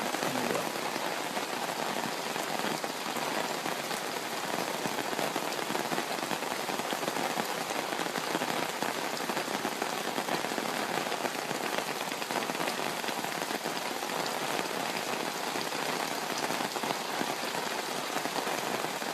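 Heavy rain pouring down steadily, a dense, even hiss of falling water.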